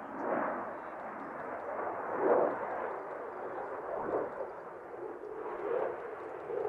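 Jet noise from an F-16A fighter flying a display routine: a rough, crackling rumble that swells and eases every couple of seconds as the jet manoeuvres.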